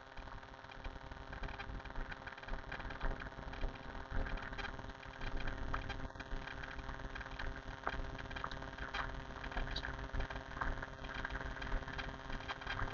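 Steady hum of an idling vehicle engine, with scattered light footsteps on pavement.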